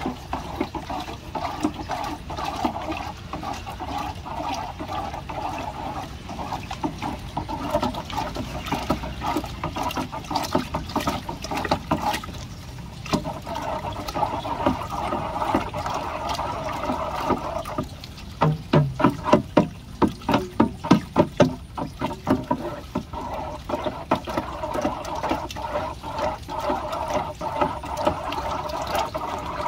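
Water churning and sloshing in a plastic drum as a PVC pipe stirs dry hydroponic fertiliser into it to dissolve. About two-thirds of the way through comes a run of quick knocks, about three a second, louder than the churning.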